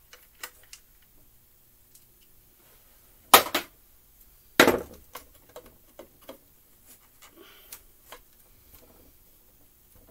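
Knocks and clicks of a screwdriver and the plastic housing of a McCulloch Mini Mac 30 chainsaw being handled during disassembly. Two loud knocks come about a third and about halfway through, followed by scattered light clicks.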